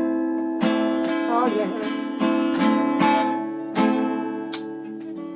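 Acoustic guitar strumming slow closing chords, each stroke left to ring, growing gradually quieter as the song ends.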